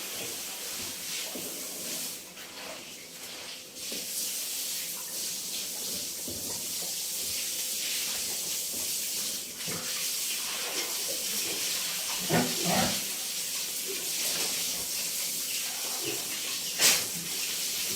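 Steady hiss of spraying water, with a few short pitched sounds about twelve seconds in and a sharp knock near the end.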